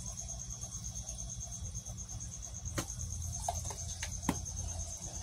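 A cricket chirping in a fast, even, unbroken pulse, with a few sharp clicks of plastic deli cups being handled about three and four seconds in.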